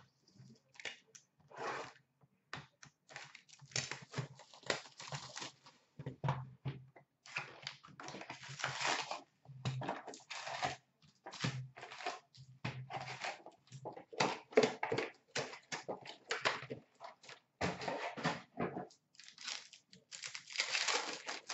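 Plastic wrapping on a box of Upper Deck SP Authentic hockey card packs being torn off and crinkled, then the packs handled and ripped open: many short, irregular rustling and tearing sounds.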